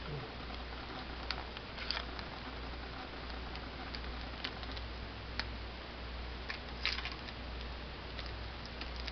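Faint scattered clicks and light taps of small packaging and parts being handled, a cluster of them about two seconds in and a louder cluster near the end, over a steady low hum and hiss.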